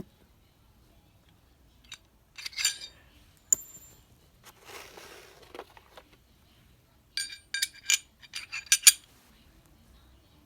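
Metal clicks and clinks of Glock 23 pistol parts being handled while the 9mm conversion barrel is fitted into the slide: a cluster of clinks, one sharp click with a short ring, a soft rustle, then a quick run of sharp clicks near the end.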